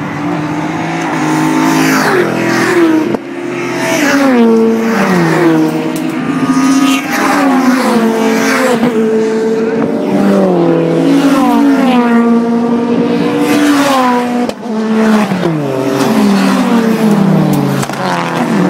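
Several race cars running flat out past the track fence one after another. Each engine note climbs, then slides down in pitch as the car goes by, over and over.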